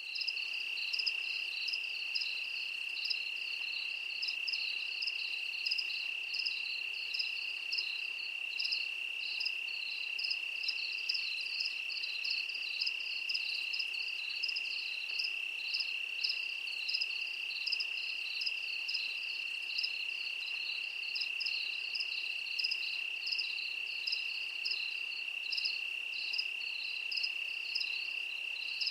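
Crickets chirping: a steady high trill with a second, pulsing chirp repeating over it.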